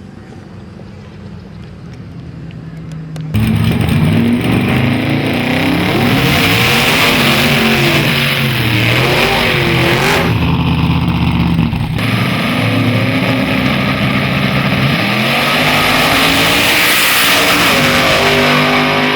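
High-powered street pickup truck's drag-racing engine: a low, quiet rumble, then about three seconds in a sudden jump to loud full-throttle running, its pitch rising and falling several times as the revs change.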